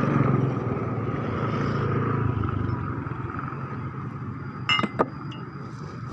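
A motor vehicle engine running and fading away over a few seconds, as if it is passing or moving off. Two sharp clinks come close together near the end.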